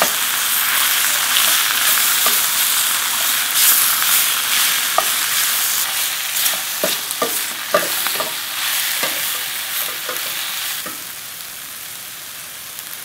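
Squid and vegetables sizzling in hot oil in a stainless steel pan while a wooden spoon stirs and scrapes through them, with scattered knocks of the spoon against the pan. Near the end the stirring stops and the sizzle gets quieter.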